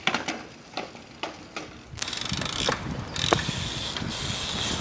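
A BMX bike clattering across asphalt in a few sharp knocks after the rider bails. About two seconds in, this gives way to a steady rushing noise with fine rapid ticking from a BMX rolling over concrete.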